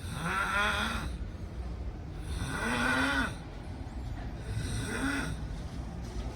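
Loud snoring: three snores about two and a half seconds apart, each with a pitch that rises and then falls.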